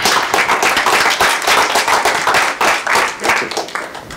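Audience applauding: many hands clapping together, tapering off near the end.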